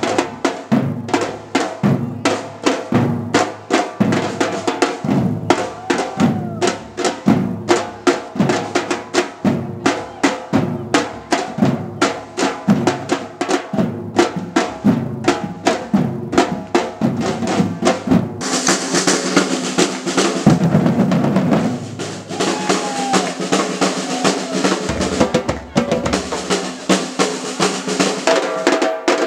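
A batucada drum group playing: large surdo bass drums and snare drums beating a steady, driving rhythm. A bit past halfway the separate beats give way to a dense, continuous roll with a bright hiss on top, and the deepest bass falls away.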